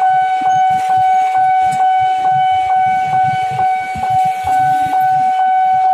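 Railway level-crossing warning alarm sounding a steady high tone pulsed by short regular beats, about four a second, over low traffic rumble.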